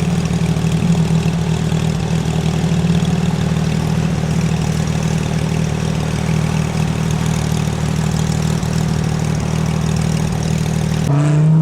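An engine idling steadily with a low, even hum; the sound changes abruptly about eleven seconds in.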